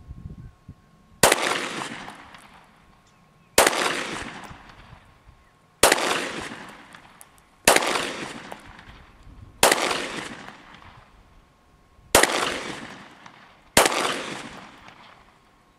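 Glock 17 9mm pistol fired seven times in slow, deliberate shots about two seconds apart, each shot trailing off in a long echo.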